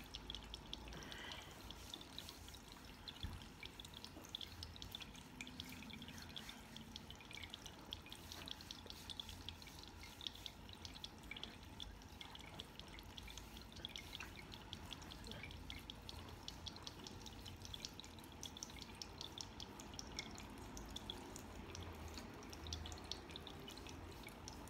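Small tabletop water fountain trickling, with a steady patter of tiny drips, faint throughout.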